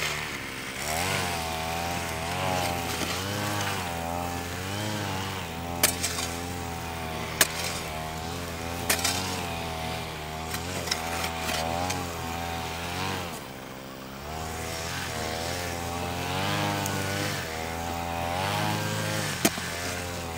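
An engine running, its pitch wavering up and down and easing off briefly about two-thirds of the way through, with a few sharp knocks over it.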